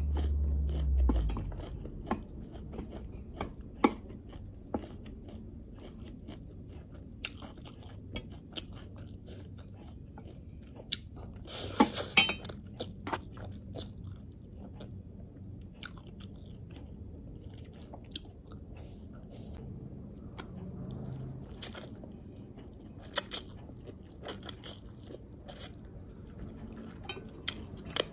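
Close-up eating sounds: crisp lettuce crunching and chewing with many wet mouth clicks, and a loud noodle slurp about twelve seconds in. A low rumble sounds in the first second.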